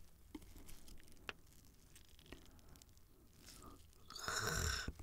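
Close-up food handling: chopsticks tick lightly against a braised pork neck bone and wet aged kimchi, then a louder soft wet squish near the end as the kimchi is laid over the meat.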